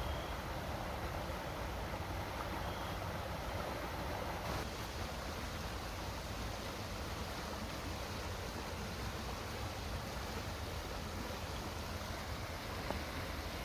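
Steady outdoor rushing noise with a low rumble underneath, its character shifting slightly about four and a half seconds in.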